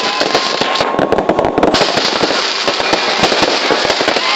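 Fireworks going off in a dense, continuous barrage of rapid pops and bangs, with a faint whistling tone running under them.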